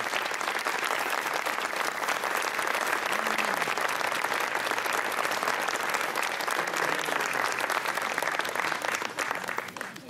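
Audience applauding at the end of a choir song, a dense steady clapping that fades out near the end.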